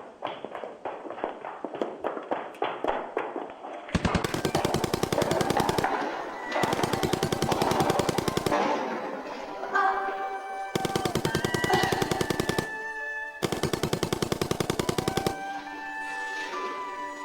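Four long bursts of automatic machine-gun fire, each about two seconds long, in very rapid strokes. Before them there is a run of quick even tapping, and a musical score with held melodic notes plays between and after the later bursts.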